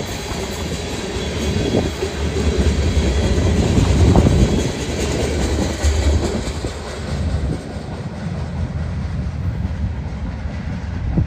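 Covered hopper cars of a freight train rolling past: a steady rumble of steel wheels on rail with occasional clacks, loudest about four seconds in and easing off toward the end.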